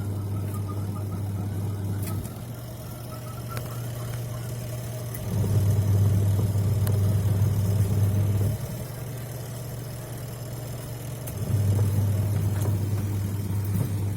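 Twin-tub washing machine motor humming under power: a steady low electric hum that grows louder and eases off in turns every few seconds, then stops right at the end.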